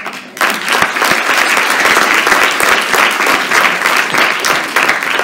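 Audience applauding: many people clapping together, breaking out about half a second in.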